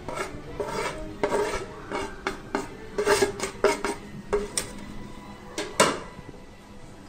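Steel spoon scraping and tapping on a plate and the rim of a stainless steel bowl while flour is knocked off into it: a string of uneven clicks and knocks, some ringing briefly, the loudest about six seconds in.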